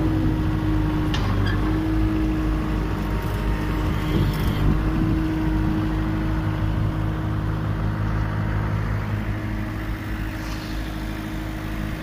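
Case skid steer's diesel engine running steadily, with a steady whine on top, as the bucket is tilted from the joystick.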